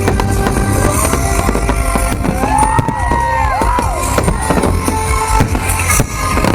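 Loud music of a fireworks show playing, with firework shells banging through it. Between about two and four seconds in there are arching, rising-and-falling whistling tones.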